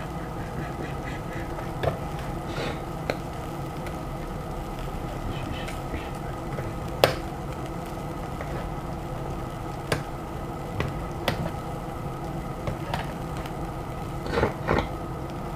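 A steady mechanical hum, like a small motor or fan running, with a few sharp clicks and knocks now and then, the loudest about seven seconds in, and a short burst of rustling and clatter near the end.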